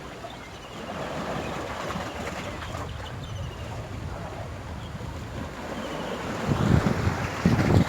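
Stormy wind at the seashore: a steady rushing hiss with gusts buffeting the microphone, heavier near the end.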